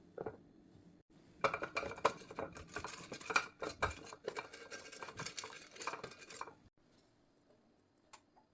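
Kitchen utensils clinking and scraping against dishes: a dense run of clatter lasting about five seconds that then stops, with a couple of single knocks just before it.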